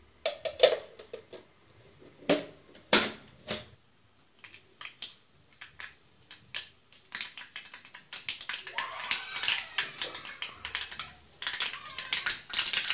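Mustard seeds popping in hot oil in an iron kadai. There are a few sharp cracks in the first seconds, then from about seven seconds in a rapid, dense crackle as the seeds splutter.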